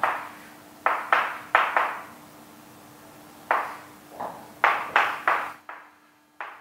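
Sharp taps of writing on a board, about ten in irregular clusters, each ringing briefly, over a faint steady hum that stops about 5.6 s in.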